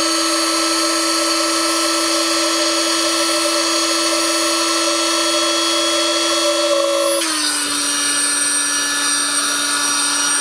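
Small 12-volt electric air pump running steadily as it inflates an air mattress chamber, a loud, even motor hum that drops slightly in pitch about seven seconds in.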